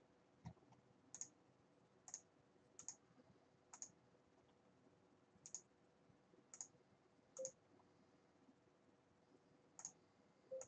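About ten faint, irregularly spaced computer mouse clicks, roughly one a second, as poker actions are selected on screen.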